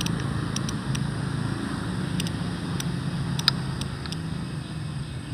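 Steady low rumble of a motor vehicle engine, with a few faint clicks.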